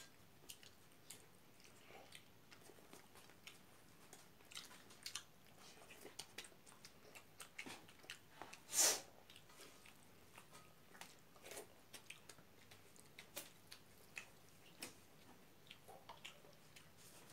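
Faint eating sounds: chewing, lip smacks and small clicks from people eating rice and pork curry by hand, scattered and irregular. One louder, brief noise comes about nine seconds in.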